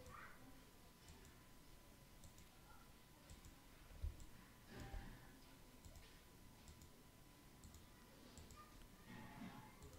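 Near silence with a few faint computer mouse clicks, the clearest about four seconds in and another just before five, over a faint steady thin whine.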